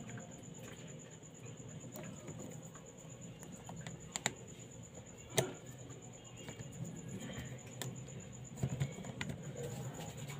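Scattered small clicks and taps as the inner parts of an opened smartphone are fitted and pressed back into place by hand, the sharpest click about five seconds in.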